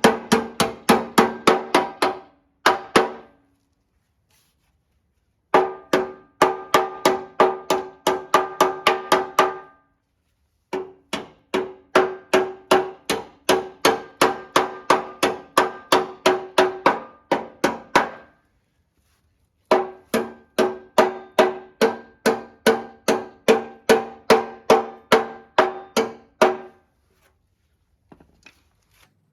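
Hammer blows on steel, about four to five a second, each one ringing, in bursts of a few seconds broken by short pauses.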